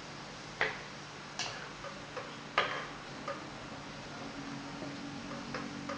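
Wooden spatula knocking against a frying pan while stirring a curry: about half a dozen sharp, irregular taps, the strongest in the first three seconds, over a low steady hum.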